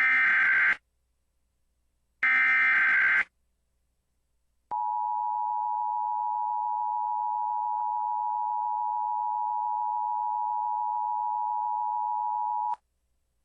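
Emergency Alert System signal: two short bursts of SAME header data screech, about a second each and a second apart, then the steady two-tone attention signal held for about eight seconds, announcing an Amber Alert activation.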